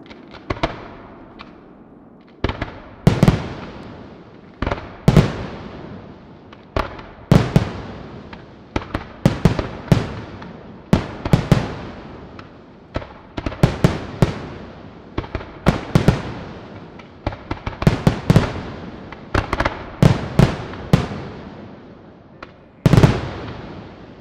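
Aerial firework shells bursting in quick succession: sharp bangs about one or two a second, each trailing off in an echo. A few light pops come first, the steady run of loud bangs starts a couple of seconds in, and the loudest bang comes near the end.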